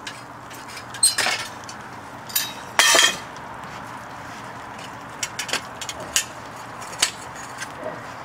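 Steel tongs and crucible clanking as a crucible of molten cast iron is handled for the pour: two louder clusters of metal clanks about a second in and near three seconds, then lighter clicks. Under them runs the steady rushing of the lit furnace.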